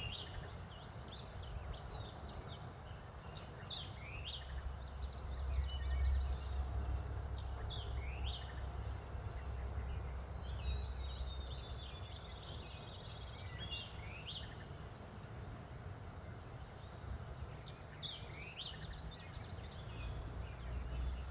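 Several songbirds chirping and trilling in short, overlapping phrases over a steady low rumble, which swells for a few seconds about a quarter of the way in.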